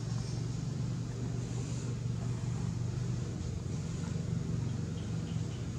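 Steady low mechanical hum of a running motor, unchanging throughout, with a faint high hiss above it.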